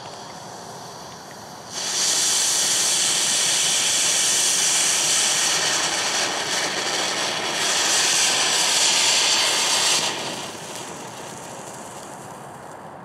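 Small F1 volcano ground fountain firework spraying sparks with a loud, steady hiss. A quieter fuse sputter comes first; the fountain starts suddenly about two seconds in and fades out after about ten seconds.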